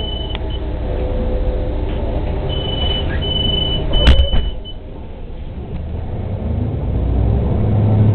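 City bus at a stop: the door warning beeper sounds in several high, steady beeps, the doors shut with a sharp knock about four seconds in, then the engine builds as the bus pulls away.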